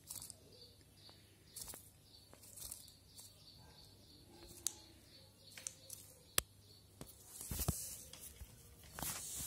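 Balkan green lizard's jaws biting and crunching a centipede: faint scattered clicks and crackles, with two short rustling bursts near the end.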